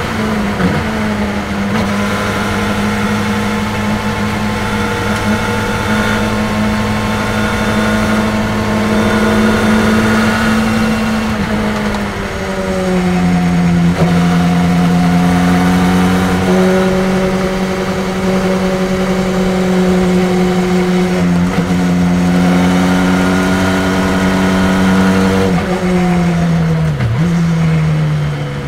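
Open-cockpit race car's engine heard from the cockpit at track speed, holding steady notes that jump in pitch several times as the car shifts down from fifth to third gear. Wind and road noise run under it.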